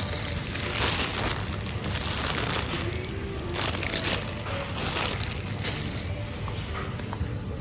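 Plastic bags of packaged leafy vegetables crinkling as they are picked up and handled, in several bursts.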